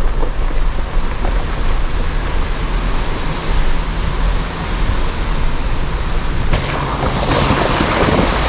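Jeep Wrangler JKU Rubicon running down a trail: a steady low engine and tyre rumble under a constant hiss. About six and a half seconds in, the sound changes abruptly to a louder, brighter rushing hiss.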